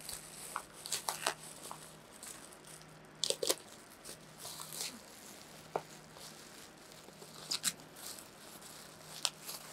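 Plastic parcel wrapping being torn open and rustled by hand, crinkling and rustling with scattered sharp crackles as a bubble-wrapped cardboard box is pulled out.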